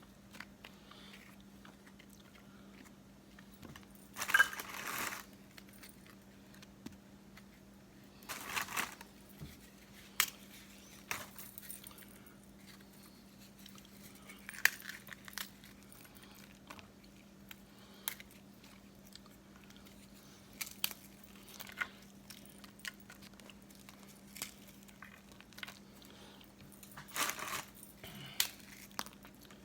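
Graham crackers being snapped into pieces and laid into a pan, in a few short bouts of crunching and crackling with light clicks between, over a faint steady hum.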